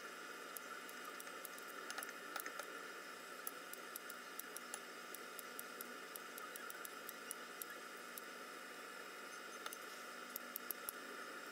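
Kitchen scissors snipping cooked squid into small pieces on a plate: soft, irregular clicks of the blades, more of them near the end, over a steady background hiss.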